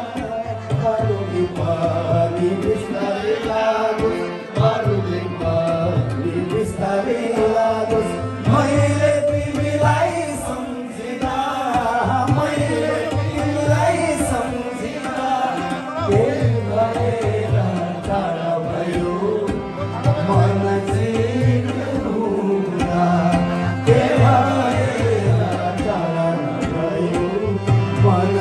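Live music: tabla drums and a harmonium accompanying a man singing.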